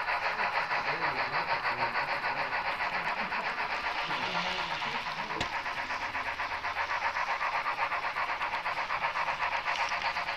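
HO-scale model train running along the track: a steady, rapid rhythmic clatter of wheels and drive, with a single sharp click about five and a half seconds in.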